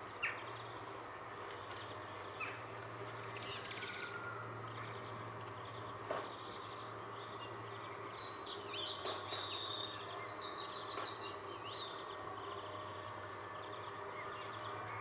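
Great tit singing: a run of quick repeated high notes about eight to eleven seconds in, with scattered chirps around it, over a steady low hum. Two short clicks stand out, one near the start and one about six seconds in.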